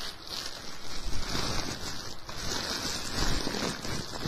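Clear plastic bag crinkling and rustling as bundled modular power-supply cables are handled inside it, in uneven swells.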